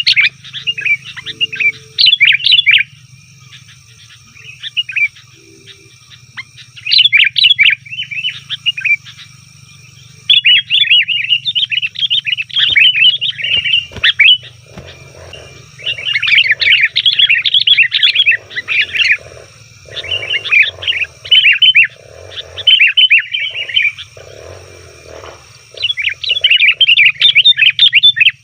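Sooty-headed bulbuls (kutilang) calling in noisy, chattering bouts of quick notes, each a second or two long, with short gaps between.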